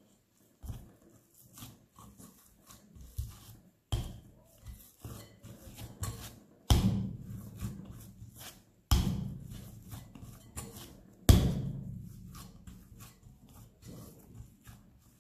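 Oiled, sticky durum-wheat bread dough being lifted, folded and pressed by hand in a glass bowl: soft wet smacks and clicks, with four heavier thuds a couple of seconds apart as the dough is dropped and pushed back against the glass, the last the loudest.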